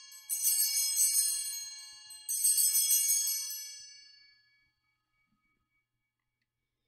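Altar bells rung at the elevation of the consecrated host: a cluster of small bells shaken twice, about two seconds apart, each shake a bright jingle that rings on and fades out over a couple of seconds.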